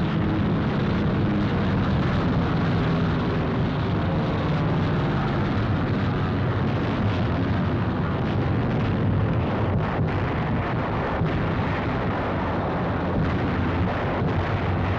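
Continuous air-battle roar: aircraft engines droning with anti-aircraft fire and explosions blended into a steady, dense din.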